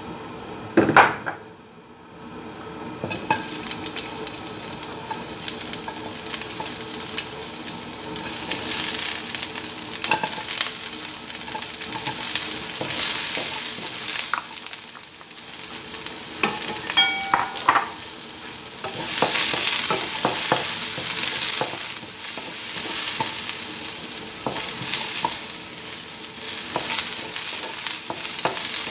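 Chopped onion and ginger sizzling in hot oil in a wok, stirred with a wooden spatula that scrapes and taps against the pan. There is a loud knock about a second in, and the steady sizzle sets in about three seconds in.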